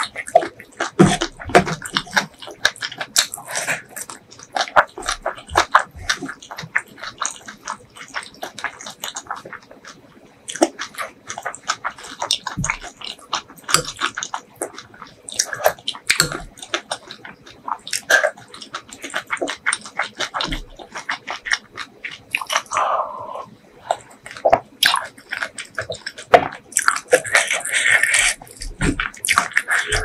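Close-miked chewing and wet mouth sounds of a person eating rice and fried fish: many small, irregular smacks and clicks. A denser rustling comes near the end.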